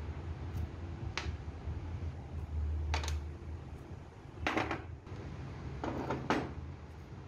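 Light metal clicks and clinks from a truck universal joint cross and its bearing caps being handled and set against the yoke, about five in all, with the loudest a little past halfway. A low steady hum runs underneath.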